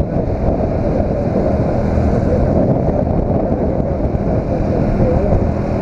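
Wind rushing steadily over the microphone of a riding Yamaha Factor 150 motorcycle, with its single-cylinder engine running under the wind.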